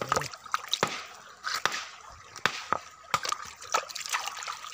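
A hand washing a rock in shallow, muddy river water: sloshing and splashing, with many short sharp clicks scattered throughout.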